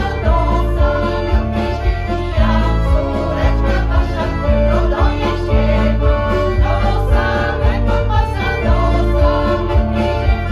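Women's folk choir singing a Polish folk song to piano accordion accompaniment, amplified through a stage PA, with the accordion's bass keeping a steady beat of about two notes a second.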